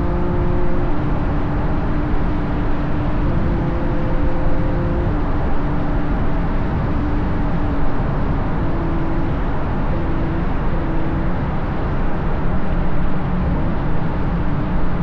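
Ferrari GTC4Lusso's V12 engine through its Capristo exhaust, running at a steady cruise with only small shifts in pitch and no hard revving. Heavy wind and tyre-road noise on a car-mounted microphone runs under it.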